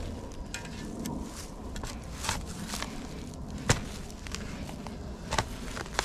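Shovel digging into clay soil among dry leaves and grass: crunching and scraping with a few sharp knocks, the loudest a little past the middle.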